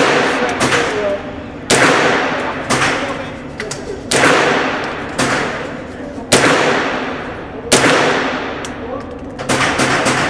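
Semi-automatic .22 rifles (Ruger 10/22s) firing single shots, about eight in all, roughly one every second or so. Each shot leaves a ringing echo that dies away before the next.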